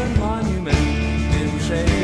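Recorded indie rock band music with a steady drum beat under sliding melodic notes.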